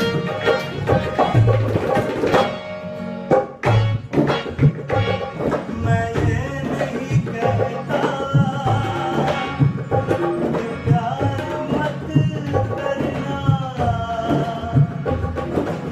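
Tabla and harmonium playing together: steady drum strokes under the harmonium's held reed chords, with a brief break about three seconds in. In the later part a man's voice sings along.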